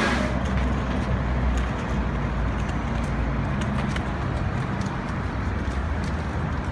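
Steady low rumble of a moving transit vehicle, with scattered faint clicks and rattles. A louder hiss cuts off right at the start.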